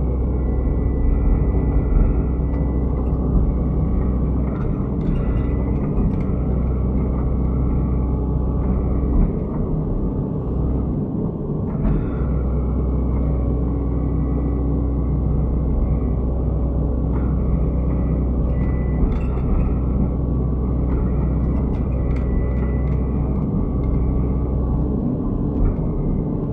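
Excavator diesel engine running steadily with a deep drone, its note dipping briefly about ten seconds in and again near the end.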